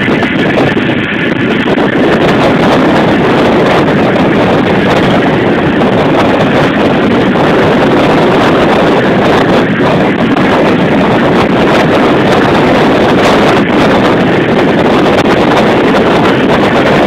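Loud, steady road and engine noise of a car on the move, with wind buffeting the microphone.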